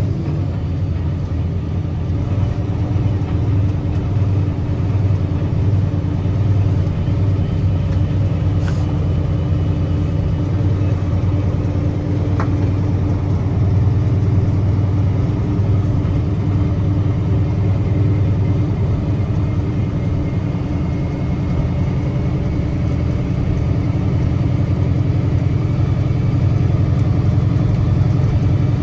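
Diesel engine of a Mack Granite truck running steadily with a low drone.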